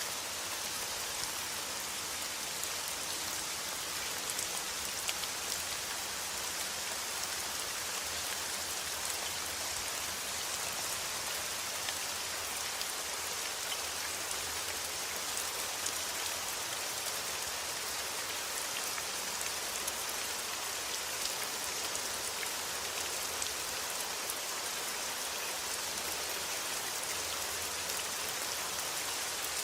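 Steady rain: an even hiss of falling drops, with many scattered sharper drop ticks throughout.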